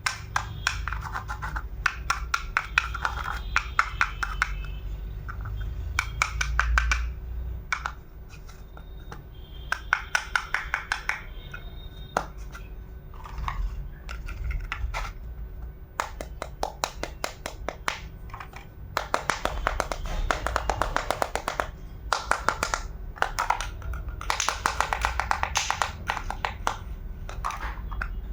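Miniature kitchen utensils clicking and tapping in quick runs of strokes, several bursts of a second or two each with short pauses between.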